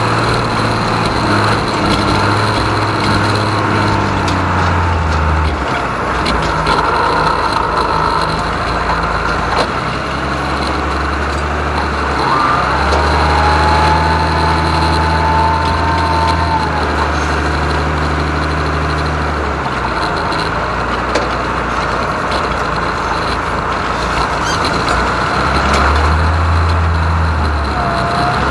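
John Deere 3130 six-cylinder diesel tractor engine running under load, pulling a cultivator; its low drone steps up and down in pitch several times.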